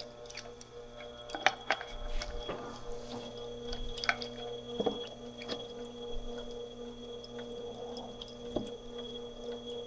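Steady hum of a running grinder motor, with a few light metal clicks and knocks as a sharpening jig is fitted and clamped onto a bowl gouge.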